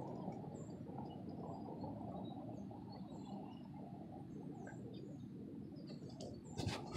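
Quiet outdoor background: a steady low rumble with small bird chirps scattered through it, and a couple of sharp knocks near the end.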